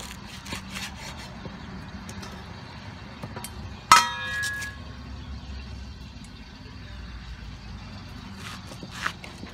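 Steel cleaver knocking on a wooden chopping block while banana flower is trimmed, with a few light knocks. About four seconds in comes one loud clank with a short metallic ring from the blade.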